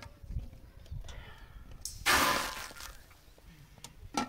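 Round of flatbread dough laid on a hot iron saj over a wood fire: a sudden hiss about two seconds in that fades over about half a second.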